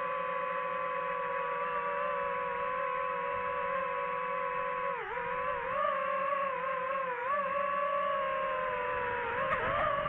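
DJI FPV drone's propellers whining steadily. The pitch dips sharply about halfway through, then wavers up and down as the throttle changes.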